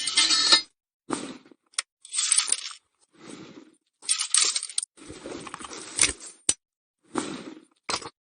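Springfield Model 1861 rifle-musket being handled and loaded: about eight short metallic clinks, scrapes and rattles, each cut off cleanly by silence.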